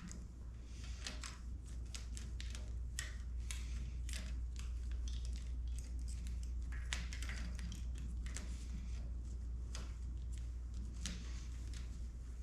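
Irregular small clicks, taps and rustles of wiring being handled and fed through motorcycle handlebars, over a steady low hum.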